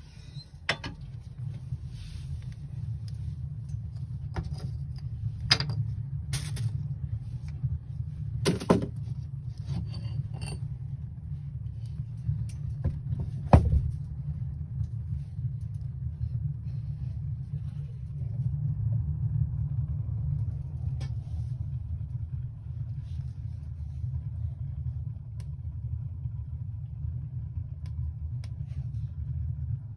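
Kindling fire burning in a homemade gas-bottle wood stove, with a steady low rumble of the draught and scattered crackles and knocks. A loud metallic knock just before halfway as the steel stove door is shut.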